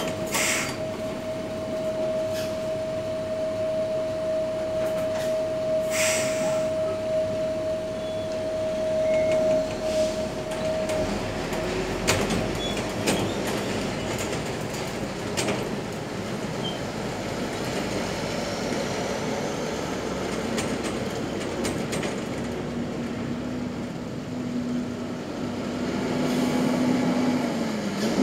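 Shacman tractor unit's diesel engine running under load as it pulls a container semi-trailer forward and away. There are short air-brake hisses near the start and about six seconds in, and a steady whine that stops about a third of the way through.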